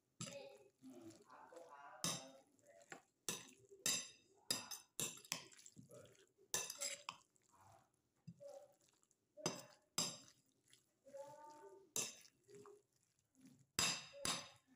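A metal spoon and fork clinking and scraping against a bowl as a wet ground-chicken, carrot and egg lumpia filling is mixed by hand, in irregular knocks.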